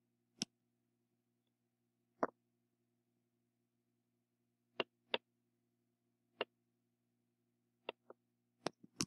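Computer mouse clicking: about eight short single clicks spread irregularly over several seconds, with a faint steady hum between them.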